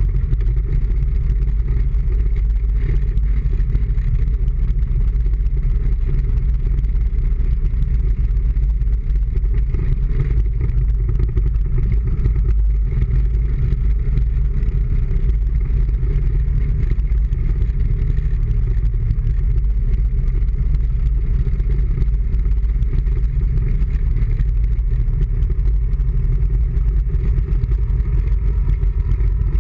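Steady low rumble of a vehicle driving slowly through city traffic, picked up by a camera mounted on its front fender.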